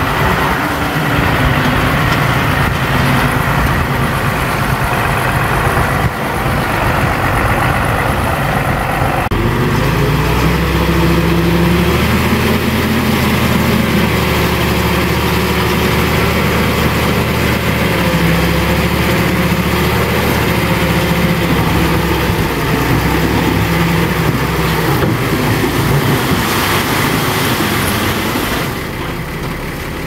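Diesel engine of heavy earthmoving machinery running continuously; about nine seconds in the engine note changes, a few seconds later its pitch rises briefly, and the sound drops slightly in loudness near the end.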